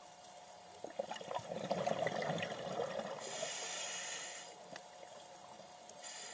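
Scuba regulator breathing underwater: a crackling rush of exhaled bubbles, then the smooth hiss of an inhalation, with another inhalation starting near the end, over a faint steady hum.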